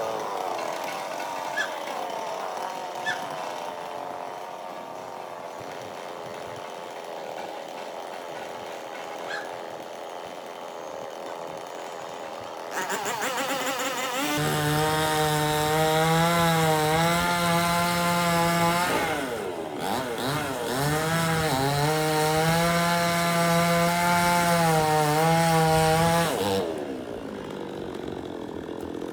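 Two-stroke chainsaw idling, then opened up to full throttle about halfway through. It cuts wood for roughly twelve seconds, its pitch dipping and wavering under load, before dropping back to idle near the end.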